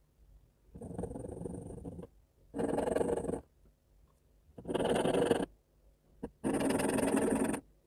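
Mechanical pencil scratching across a textured drawing board in four separate strokes of about a second each, a rough rasping sound.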